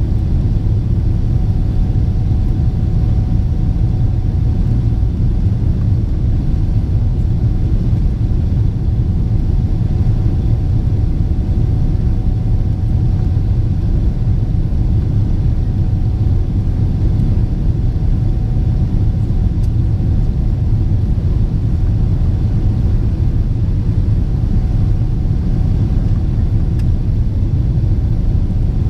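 Steady cabin rumble of a Boeing 777-300ER, with a faint steady whine above it. The level stays even, with no rise in engine power.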